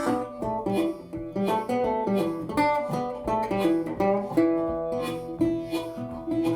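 Background music: an upbeat bluegrass-style tune with picked banjo and guitar notes at a steady rhythm.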